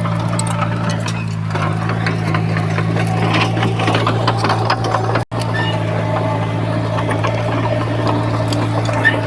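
Diesel engine of heavy earthmoving machinery running steadily, with rattling and clanking over it. The sound drops out for an instant about five seconds in.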